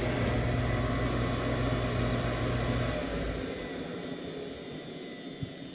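Furnace draft inducer motor running with a steady hum, then switched off about three seconds in and winding down. The furnace isn't lighting because its pressure switch isn't closing.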